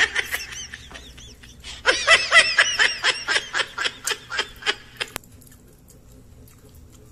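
High-pitched laughter: a quick run of ha-ha notes, about four a second, from about two seconds in until about five seconds in. It follows a short high-pitched vocal sound right at the start.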